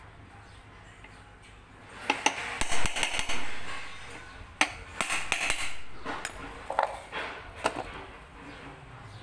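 Metal clinking and knocking from hand work on an electric bicycle hub motor being reassembled: a run of sharp metallic taps and clatter starts about two seconds in and dies away near the end.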